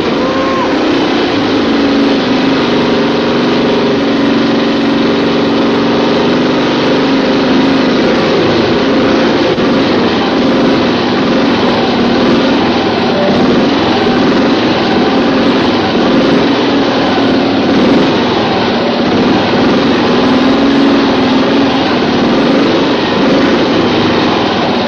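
Motorcycle engine running loudly and steadily.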